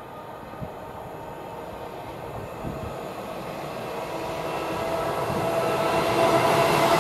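London Midland Class 350 electric multiple unit approaching, growing steadily louder. The rumble of the train on the rails carries a whine of several steady tones that strengthens as it nears.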